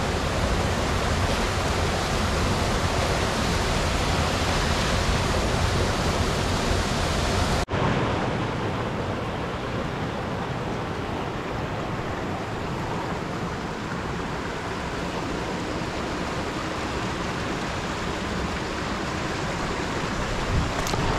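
Rushing water of a rocky stream cascading over boulders, a steady even rush. About a third of the way in it cuts suddenly to a quieter, duller rush.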